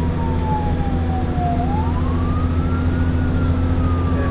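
Fire truck siren heard from inside the cab: one slow wailing tone falls, rises again about a second and a half in, then falls once more. Under it runs the steady rumble of the truck's engine.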